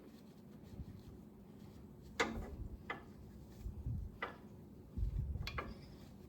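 Four sharp clicks or knocks, roughly a second apart, with low thuds about five seconds in: handling noise.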